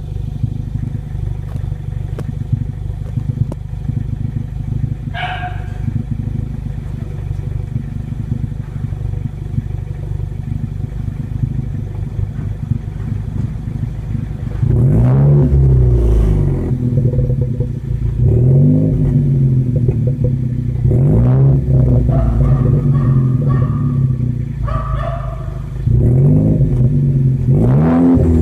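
Ford Focus ST exhaust through a Borla Pro XS muffler: the engine idles steadily, then from about halfway is revved several times, each rev rising and falling back.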